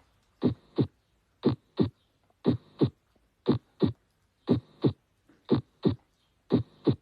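Heart sounds heard through a stethoscope: a steady lub-dub, two short beats about a third of a second apart, repeating about once a second (roughly 60 beats a minute), seven times.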